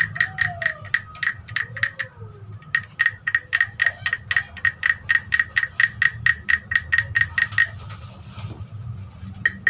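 Carved wooden frog rasp (frog guiro) played by rubbing a stick along its ridged back, giving a rapid run of croaking clicks, about six a second. There is a short break about two seconds in, and the strokes stop about a second and a half before the end, with a few more right at the end.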